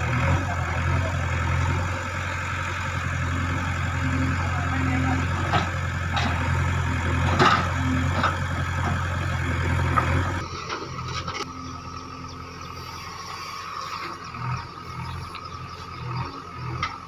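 JCB backhoe loader's diesel engine running steadily, with a few sharp knocks. About ten seconds in, the sound drops abruptly to a quieter engine sound.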